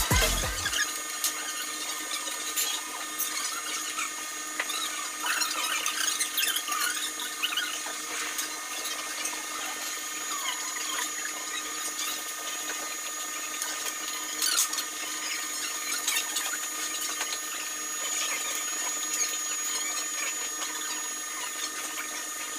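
Restaurant dining-room background: a steady machine hum with a faint high whine, and faint scattered clinks and scrapes of forks and spoons on plates as people eat. Music cuts off within the first second.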